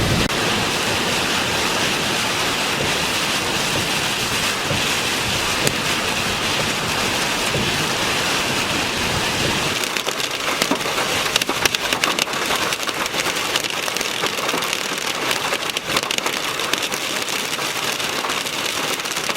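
Heavy rain pelting down in a steady hiss. About ten seconds in, the low rumble drops away and sharp ticks of individual drops striking a surface stand out.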